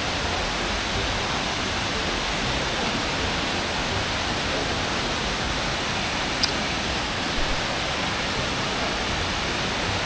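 Steady, even rush of falling water from Nachi Falls, a 133 m plunge waterfall, with a faint click about six and a half seconds in.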